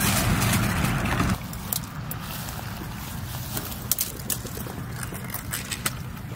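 Wind buffeting the microphone, which drops away about a second in. After that come quieter, irregular small clicks and rustles of dry grass stems and twigs being brushed and stepped through.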